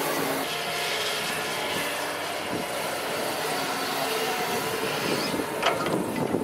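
Doosan DX225LCA crawler excavator's diesel engine and hydraulics working steadily as it empties a bucket of sand into a truck and swings back. A few sharp knocks come about five and a half seconds in.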